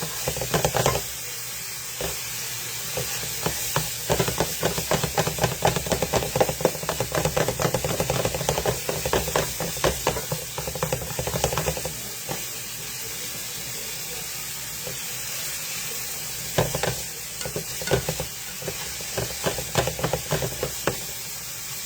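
Knife chopping onions finely on a cutting board: rapid runs of sharp knocks, pausing for a few seconds midway, over a steady hiss.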